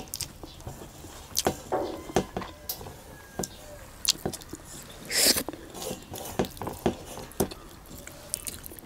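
Close-up eating sounds: chewing and lip smacks with scattered small clicks from fingers working rice on steel plates, and a short louder breathy hiss about five seconds in.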